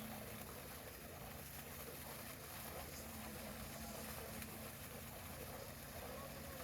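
Heavy construction machinery engine running steadily with a low hum.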